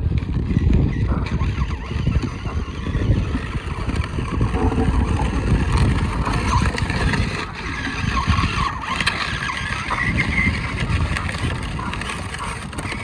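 Child's battery-powered ride-on toy motorcycle rolling along on pavement: a steady low rumble of its electric motor and plastic wheels.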